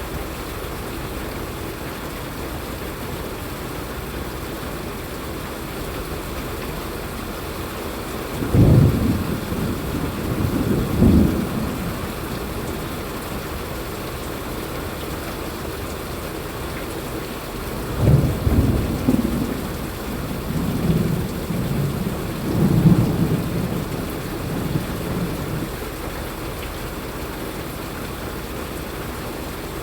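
Steady rain falling, with thunder rumbling twice: once from about nine seconds in for a few seconds, and again from about eighteen seconds in, rolling on for several seconds.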